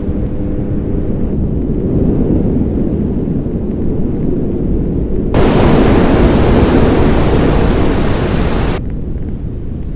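Steady low rumbling noise. About five seconds in, a loud hiss like static starts abruptly, then cuts off suddenly about three and a half seconds later.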